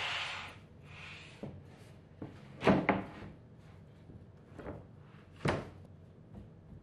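A large MDF sheet sliding and knocking into place on a CNC router's bed. A scraping rush fades out in the first half second, then come several dull wooden knocks: the loudest is a double knock nearly three seconds in, with another about five and a half seconds in.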